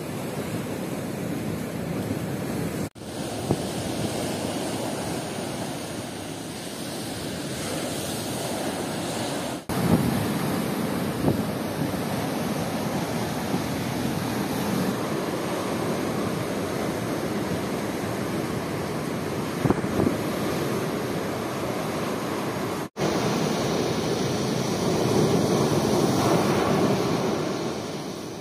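Sea waves breaking and washing up onto the shore, with wind buffeting the microphone. The sound drops out for a moment three times and fades away near the end.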